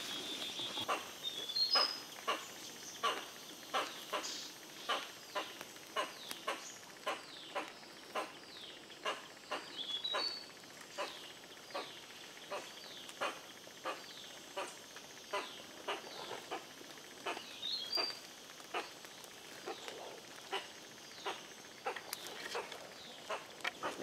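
Footsteps crunching through dry leaf litter at a steady walking pace, about two steps a second, with a few short bird chirps overhead.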